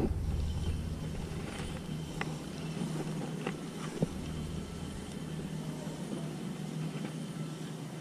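A steady low drone like a distant engine, with a few faint clicks and one sharp click about four seconds in.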